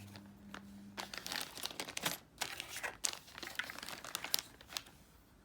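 Board game components being handled: a run of crinkling and rustling with short sharp crackles, thinning out near the end.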